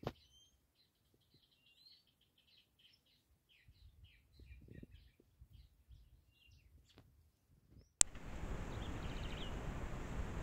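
Many short, faint bird chirps and tweets in the background. About eight seconds in, a sharp click and then a louder, steady hiss of a trail camera's microphone take over.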